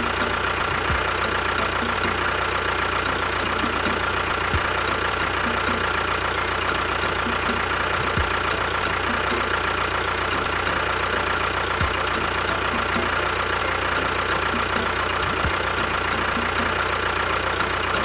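Small motor of a DIY model tractor running steadily with a constant whine and a rapid faint ticking, plus a short low thud about every three and a half seconds.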